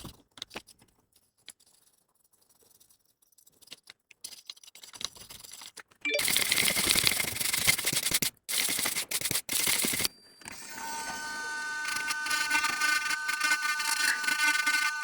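Faint clicks of small tools, then a loud, steady rush of air from a hot air rework gun starting about six seconds in, briefly interrupted and stopping a few seconds later; it then gives way to a steady whine of several tones that slowly grows louder.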